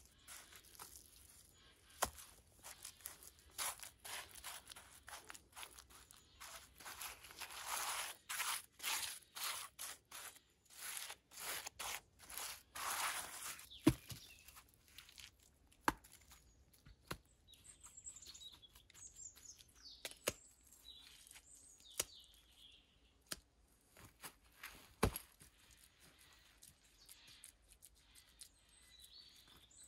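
Gloved hands scraping and rustling through clay and loose earth, with sharp single knocks as short wooden logs are set in place. Birds chirp faintly in the second half.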